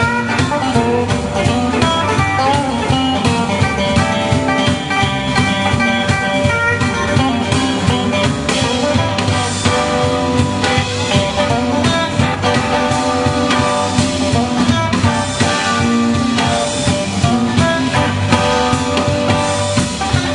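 Live electric blues band playing an instrumental passage: electric guitars over bass and a drum kit keeping a steady beat.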